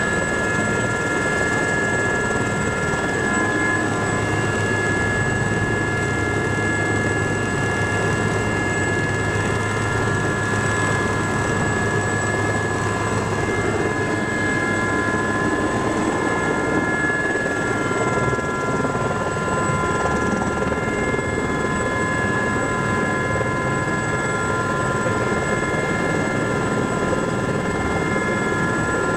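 Aérospatiale Gazelle helicopter's turboshaft engine and rotors running steadily on the ground, heard from inside the cabin: a constant rushing drone with several high, steady whine tones over it.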